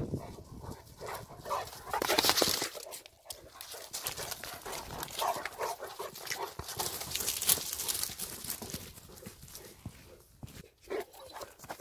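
Presa Canario dogs running and playing, with short, irregular vocal sounds from the dogs over scuffing and rustling noise, loudest about two seconds in.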